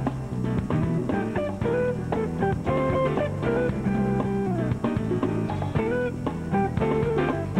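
Instrumental background music: a guitar-led smooth jazz or blues piece over bass and light drums, with some melody notes bending or sliding in pitch.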